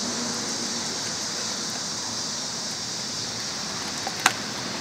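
A dog chewing raw beef oxtail, with one sharp crunch of bone about four seconds in, over a steady background hiss.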